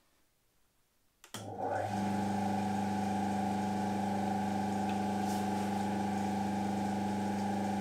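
Homemade disc sander powered by an old drill-press electric motor, switched on about a second and a half in: a click, then the motor spins up within half a second and runs with a steady hum. It runs a little unevenly ("ein bisschen unrund"), which the builder thinks is not serious.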